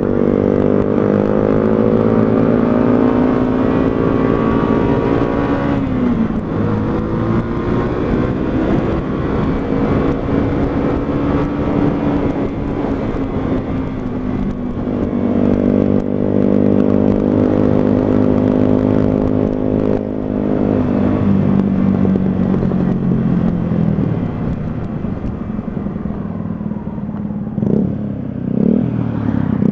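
125cc motorcycle engine running under way, its pitch holding, dipping about six seconds in, climbing again and then falling away for the last several seconds as the bike slows.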